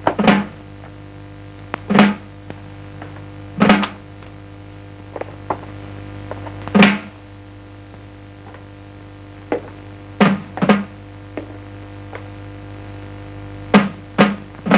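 Sparse low drum strikes from a film score, each a sharp hit with a short low ring, spaced about two seconds apart at first and then coming faster in twos and threes near the end, over a faint steady low hum.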